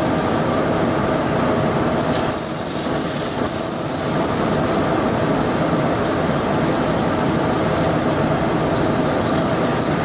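Aerosol can of foaming coil cleaner hissing in spurts onto a refrigeration condenser coil, over a steady, loud machine hum.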